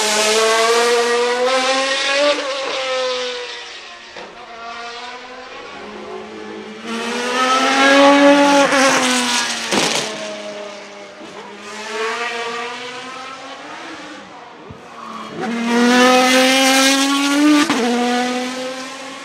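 Maserati MC12 Corsa's V12 engine accelerating hard past the spectators, three loud runs in which the engine note climbs in pitch and then drops sharply at a gearshift, with quieter engine sound between them.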